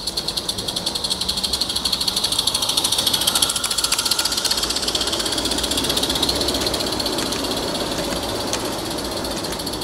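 A garden-railway live steam locomotive hauling coaches past, its rapid, even exhaust beats mixed with wheel clatter on the track. The sound builds to its loudest about three to four seconds in as it passes, then eases off.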